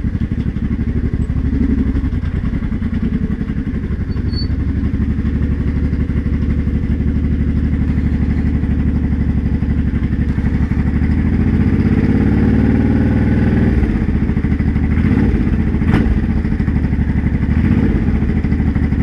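Honda Shadow VT500C V-twin engine running, revved up once and let back down, with a rattle that has been getting worse fast; the owner places it in the clutch or generator section rather than the gearbox. A single sharp knock near the end.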